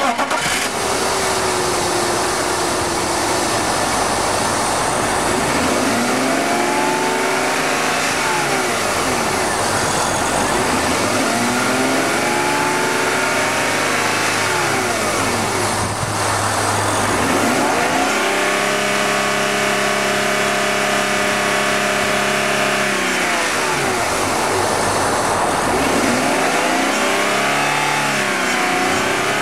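BMW 528i straight-six engine being revved in neutral: it climbs and falls back about four times, once holding high revs for about five seconds in the middle before dropping back to idle.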